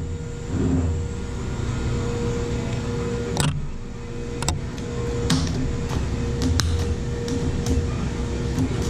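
Small portable inverter welder arc welding at about 50 amps: a steady hum with irregular sharp crackles and snaps, the strongest about three and a half seconds in.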